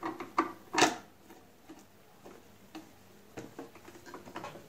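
Screwdriver turning a screw into the plastic housing of a Singer Promise 1408 sewing machine: light clicks and ticks, a quick cluster in the first second with the loudest click just before one second in, then sparser, fainter ticks.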